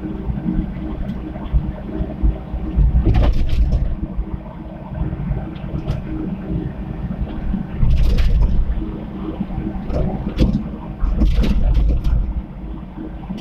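Komatsu PC75 mini excavator's diesel engine running under load, with a steady low rumble that swells louder three times, each swell bringing short clattering knocks.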